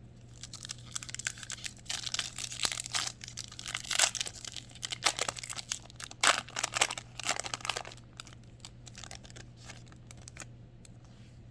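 A 2001 Upper Deck Pros & Prospects baseball card pack is torn open, its wrapper crinkling with sharp crackles for most of the first eight seconds. This settles into lighter rustling as the cards are slid out.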